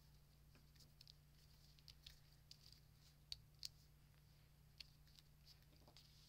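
Near silence: faint rustling and a few soft ticks of paper as fingers press die-cut cardstock letters down onto a card, over a low steady hum.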